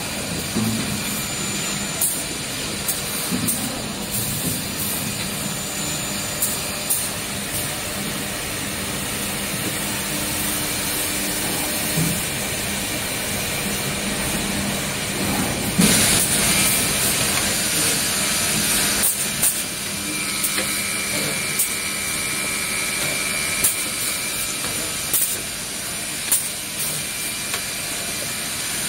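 Six-sided CNC boring machine running: a steady mechanical hum with scattered sharp clicks from the drilling heads at work. About sixteen seconds in, a louder hiss lasts about three seconds.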